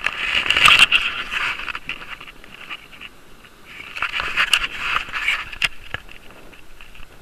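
Handling noise from the camera: scraping and rubbing right on the microphone as the camera is turned about, with sharp clicks. It comes in two loud spells, the first starting suddenly, the second about halfway through.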